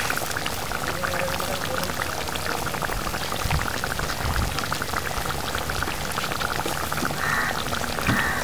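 Thick fish curry bubbling steadily in a steel kadai, with many small pops, while a steel ladle is stirred through it.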